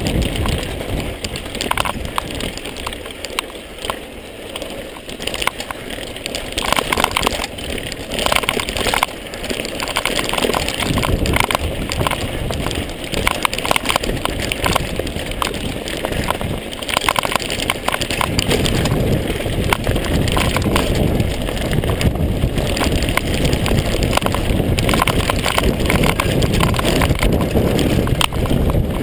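Mondraker Kaiser downhill mountain bike riding fast over a loose gravel trail: tyres crunching on stones, with constant rattles and knocks from the bike and low wind rumble on the microphone. It dips for a few seconds early on, then grows louder and rougher in the second half.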